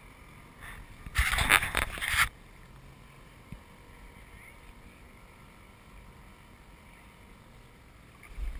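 A loud rush of noise lasting about a second, then a low, steady background in which a small outboard boat runs faintly in the distance.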